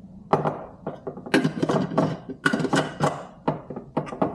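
Metal spoon scooping sugar from a glass jar: a rapid, irregular series of scrapes and clinks against the glass.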